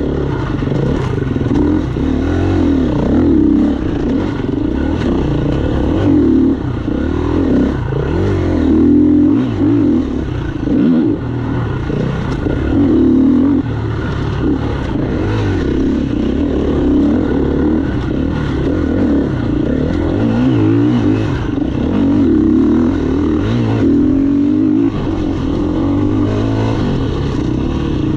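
Honda CRF four-stroke single-cylinder dirt bike engine revving hard as it is ridden over a rough trail, the pitch rising and falling every second or so with the throttle and gear changes. Scattered knocks and clatter from the bumpy track, heard close from the bike-mounted camera.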